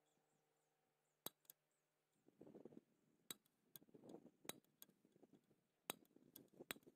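A pointed steel punch pressed and worked into the end of a steel bolt clamped in a bench vise, marking the centre for drilling: faint, sharp metallic clicks, about eight of them, with short bursts of scraping in between.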